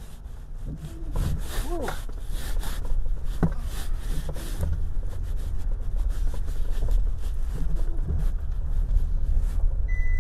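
Pickup truck driving slowly over a washed-out gravel road, heard from inside the cab: a steady low rumble of engine and tyres, with gravel crunching and crackling under the wheels, busiest in the first half.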